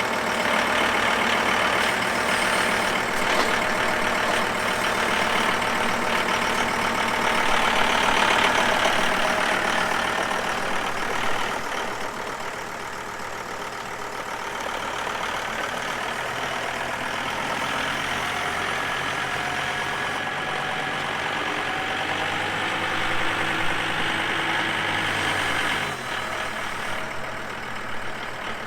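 John Deere tractor engine running steadily; it is louder for roughly the first ten seconds, eases about twelve seconds in, and drops again near the end.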